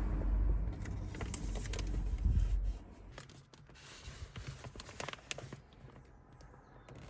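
Car engine and road rumble that cuts off suddenly about three seconds in, as the engine is switched off. A few small clicks and light rattles follow, like keys and cabin fittings being handled.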